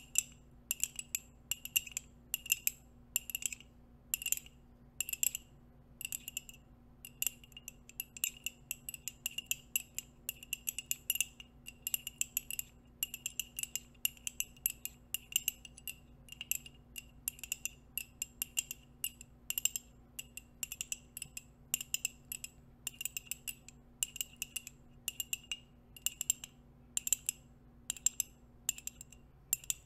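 Nail rings tapping and clicking on a mug in quick, irregular runs of taps. Each tap rings briefly at the same bright pitch.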